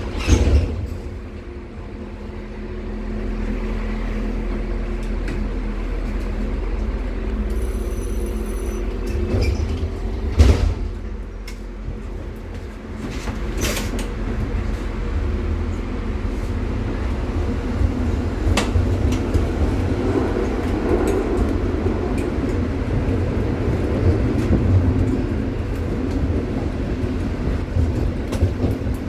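Konstal 105Na tram under way, heard from inside the car: a steady hum from the traction motors over the rumble of the wheels on the rails. There is a sharp knock about a second in and another about ten seconds in.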